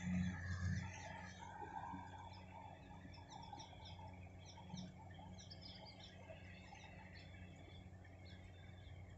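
Low, steady drone of a distant Kubota crawler combine harvester harvesting rice. A rooster crows near the start, and small birds chirp repeatedly through the middle.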